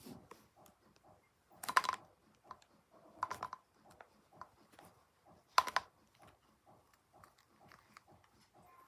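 ASMR handling of a Funko Pop figure and its packaging: light, scattered taps and clicks, with louder clusters of quick clicks about two, three and five and a half seconds in.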